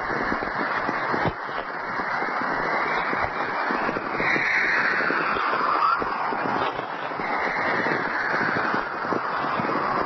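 Natural VLF radio recording of whistlers: a dense bed of crackling static with descending whistling tones that slide down in pitch, a clear one about four seconds in and a fainter one near the end.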